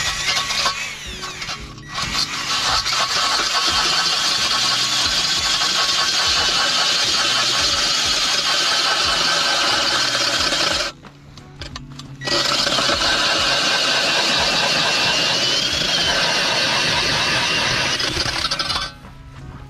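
Cordless drill spinning an ice auger boring through lake ice, running steadily. It pauses briefly about two seconds in, stops for about a second just before the middle, then runs again until shortly before the end.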